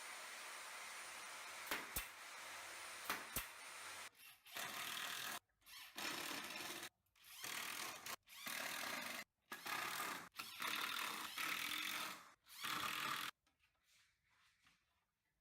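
A power tool working wood in a series of short bursts about a second long, each starting and stopping abruptly, after a few seconds of steady noise with several sharp clicks.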